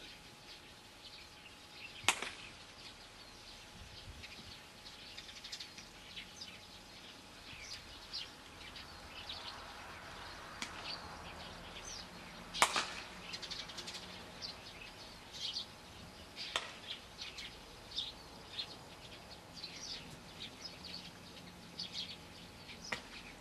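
Softball bat striking pitched balls: a sharp crack about two seconds in, a louder one about halfway through, and another a few seconds later. High bird chirps can be heard between the hits.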